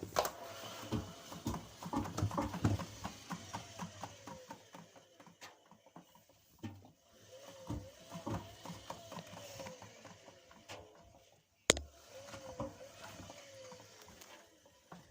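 A washing machine being handled by hand: a run of quick knocks and rattles, with a squeal that rises and falls twice. It sounds a bit bad.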